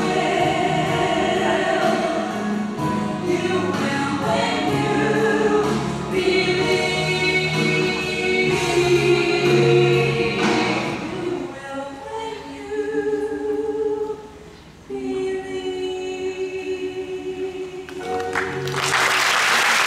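Two female voices singing together through handheld microphones and a PA system, with held notes. Audience applause breaks out about a second before the end as the song finishes.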